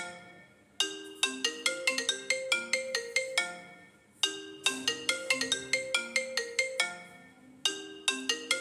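Apple iPhone 11 ringing for an incoming call: the ringtone plays a short melody of quick notes, about two and a half seconds long, that repeats after a brief fading pause, about every three and a half seconds.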